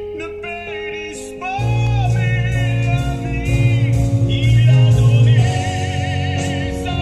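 Christian hymn music: sung notes with vibrato over accompaniment, with a fuller band and heavy bass coming in about one and a half seconds in.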